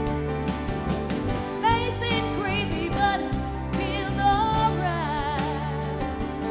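Live country band playing: acoustic guitars, drums and bass, with a woman singing a wavering melody from about a second and a half in.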